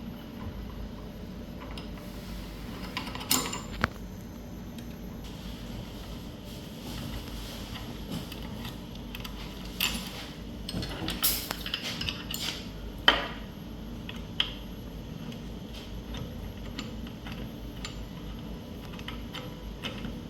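Scattered metal clinks and knocks of hand tools and small metal parts being handled while the blasting head's 5 mm Allen screws are undone, the sharpest clink about 13 seconds in.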